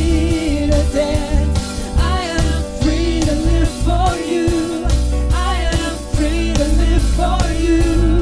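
Live worship band playing a Christian song: women singing the melody and harmonies over acoustic guitar and a steady beat.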